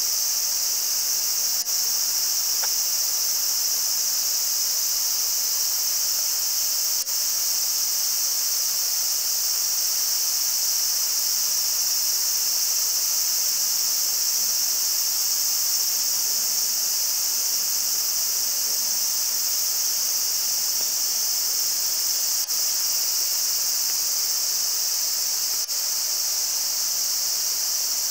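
A steady, high-pitched chorus of insects, unbroken and even in level, with a few faint clicks.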